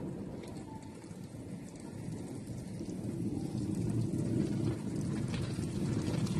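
Automatic car wash spraying water onto a car: a dense, rain-like drumming of water on the bodywork that grows gradually louder.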